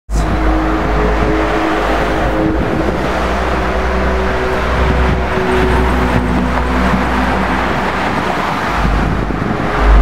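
A loud, steady low rumble overlaid with sustained droning tones that hold for a second or two and then shift in pitch. This is the unexplained sound heard from the sky, like the strange sky sounds reported worldwide.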